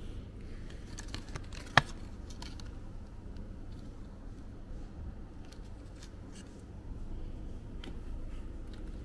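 Handling noises: a scatter of small clicks and light rustling, with one sharp click a little under two seconds in, over a low steady room hum, as hands handle a mower and its card tag.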